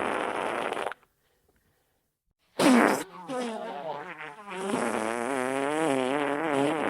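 Wet fart sound effect: a wavering, sputtering fart that cuts off about a second in. After a short silence a new one starts with a loud burst that drops in pitch, then runs on as a wobbling, bubbly sputter.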